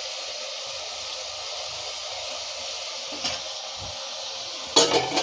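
Brinjal pieces frying in oil in an aluminium pot, a steady sizzle, with a loud clatter near the end.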